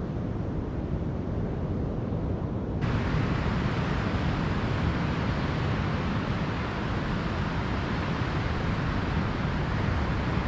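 Steady wash of ocean surf on a beach, with wind buffeting the microphone. About three seconds in the sound suddenly turns brighter and hissier.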